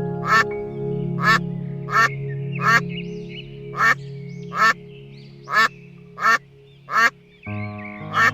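A duck quacking again and again, about nine short quacks a little under a second apart, over background music.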